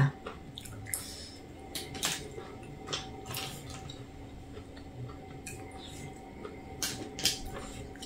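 Cooked mussel shells clicking against each other and against a steel pot as mussels are picked out and pried open by hand: scattered light clicks, several a few seconds apart.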